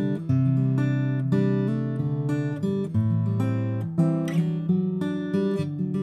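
Taylor acoustic guitar playing chords picked note by note in a steady rhythm, with one brighter strum about four seconds in, recorded on an AKG C214 condenser microphone.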